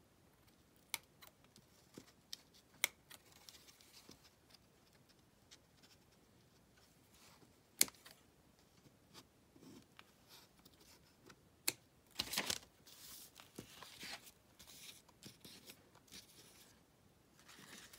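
Paper scraps being handled and shuffled, with scattered sharp taps and clicks and a longer rustle about twelve seconds in.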